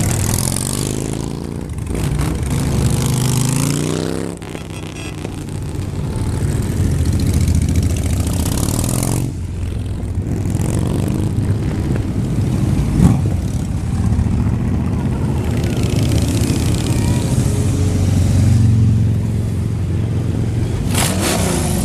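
Motorcycles riding past one after another, their engines swelling and fading as each one goes by.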